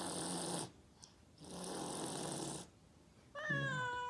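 A cat hissing twice, each hiss about a second long. Then, near the end, a drawn-out meow that slides slightly down in pitch.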